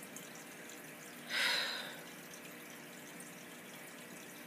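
A single audible breath about a second in, from someone fighting back tears, over a faint steady room hum.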